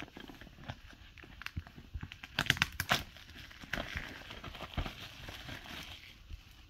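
Plastic shrink wrap being torn and peeled off a DVD case, crinkling and crackling, with a cluster of sharp crackles about two and a half seconds in.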